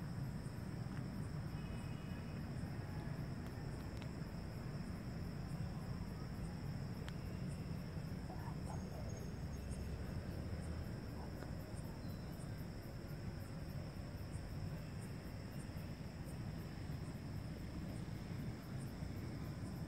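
Crickets chirping in a steady, continuous high trill, over a low rumble.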